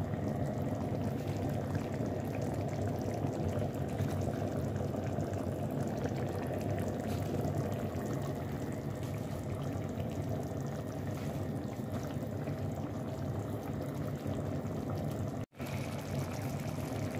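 Tomato sauce with kefta meatballs simmering in a clay tagine, bubbling steadily, with a momentary dropout near the end.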